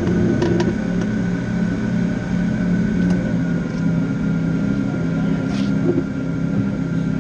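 Formula SAE race car sitting still with its powertrain running: a steady low drone with a thin high tone over it and a few faint clicks.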